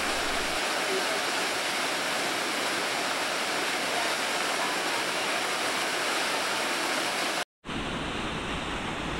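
Steady rushing of the Lower McCloud Falls, a 15-foot waterfall pouring over a basalt block into a deep pool. Near the end the sound cuts out for a split second, then comes back deeper, with more low rumble and less hiss.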